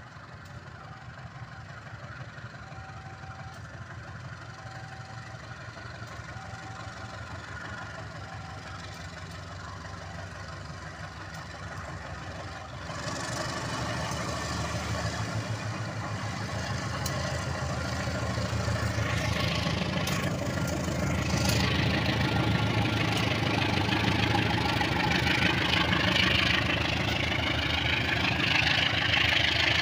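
Diesel-electric locomotive pulling a passenger train, coming slowly closer and passing near by with its engine running at a low rumble. The engine gets clearly louder about thirteen seconds in. Wheel-on-rail noise builds as the coaches go by, with a wavering high squeal from the wheels in the last several seconds.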